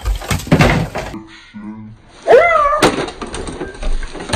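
Knocks, thuds and rustling of things being bumped and handled while the camera is jostled close to the microphone, with a short high-pitched yelp about two seconds in.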